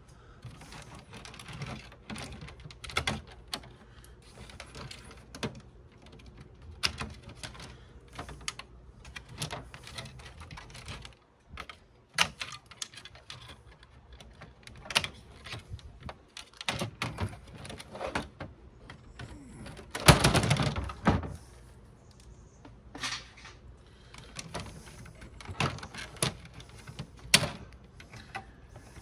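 Irregular clicks, taps and knocks of plastic and metal parts being handled and pulled apart while dismantling a DVD player, with a louder clatter lasting about a second partway through.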